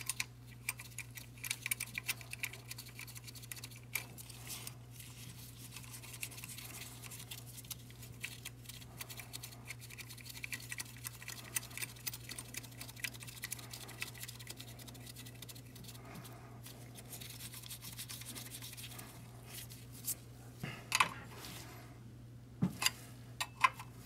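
Small metallic clicks and scrapes as a high-pressure fuel line's fittings are handled and threaded by hand onto a diesel injector and fuel rail, with a few sharper clicks near the end as a wrench goes onto the fitting. A low steady hum runs underneath.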